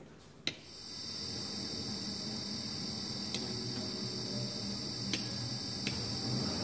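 A sharp click, then an inverter-driven electric motor starts and runs with a steady low hum and a high-pitched whine from the inverters. Three more sharp clicks come from the control board's buttons and relays.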